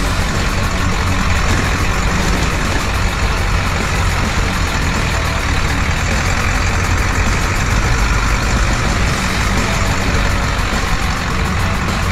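Ford Bronco's 7.3 Powerstroke turbo-diesel V8 running steadily at low trail speed, with big off-road tyres rolling over gravel and stones.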